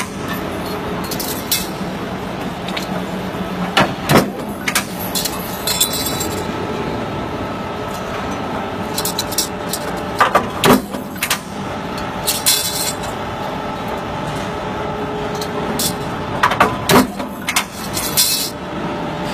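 A J23 40-ton mechanical power press running with a steady hum, broken by irregular sharp metallic clanks and clinks as stamped steel duct-corner pieces are handled and knocked together.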